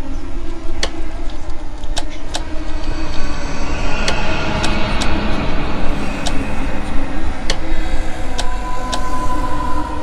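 Horror ambience: a deep rumbling drone with a low hum, broken by about a dozen sharp, irregular electrical clicks of flickering lights. A thin steady tone joins near the end.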